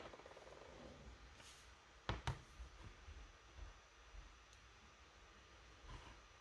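Near silence with quiet room tone, broken by a pair of light clicks about two seconds in and a few fainter ticks.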